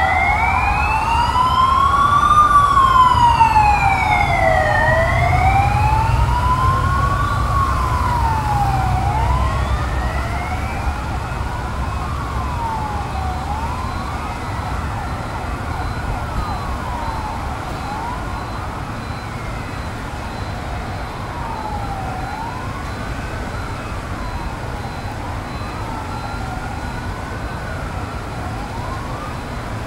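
Police escort sirens wailing, several overlapping, each slowly rising and falling. They are loudest over the first ten seconds, then fade as the motorcade moves away, over a low traffic rumble.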